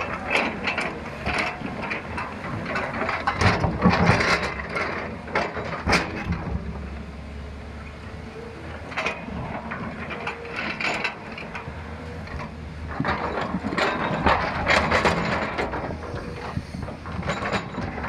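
JCB excavator at work on a hillside: the diesel engine runs steadily while the bucket scrapes and knocks against rock and soil, in irregular clattering spells that peak twice.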